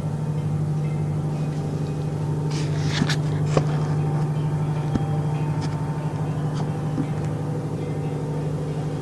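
A steady low droning hum of unknown origin that holds the same pitch throughout, with several fainter tones stacked above it. A few brief clicks come about three seconds in.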